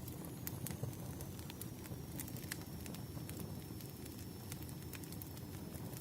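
Wood fire crackling: irregular sharp pops and snaps of burning firewood over a steady low rush of the flames.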